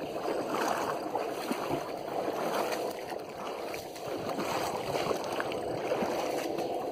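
Shallow floodwater sloshing and trickling in grass, stirred by people wading ankle-deep, as a continuous irregular splashing.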